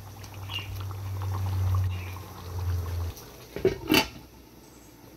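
Beef curry gravy simmering and bubbling in a covered pan, over a steady low hum that stops abruptly about three seconds in. A few sharp knocks follow about a second later as the glass lid is handled.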